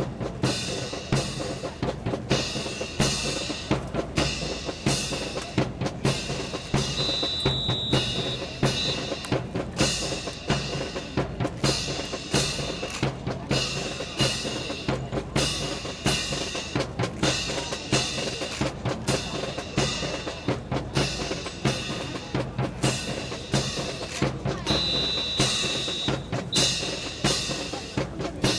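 Drum-heavy music with a steady, regular beat of snare and bass drum strikes.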